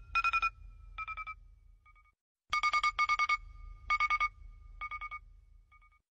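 Electronic ringing tone: short bursts of rapid trilling beeps on one fixed pitch, each burst about half a second long, the longest near the middle, with pauses between them.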